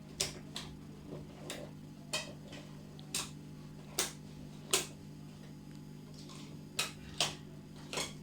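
About ten short, sharp clicks and taps at irregular intervals, from hands working cardboard, tape and a rubber band, over a steady low hum.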